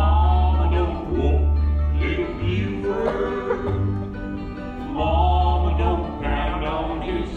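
Country music: voices singing over a pulsing bass line that changes note about once a second.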